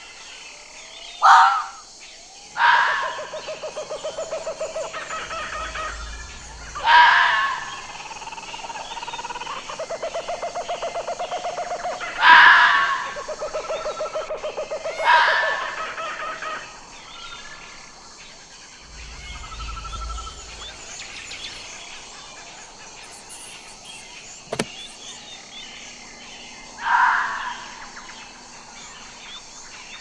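Fox calling: a series of short, loud, harsh calls, most of them in the first half, with long stretches of rapid stuttering chatter between them. After about 17 s the calling thins out to one more loud call near the end.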